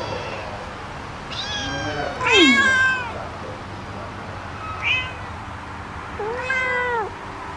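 A domestic cat meowing four times. The second meow, a couple of seconds in, is the loudest and drops sharply in pitch at its end. The last is a longer, arching meow.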